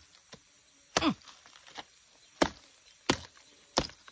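Machete chopping into the hard husk of a red-spined Dayak durian to split it open: about six sharp strokes, roughly one every two-thirds of a second, the first one faint.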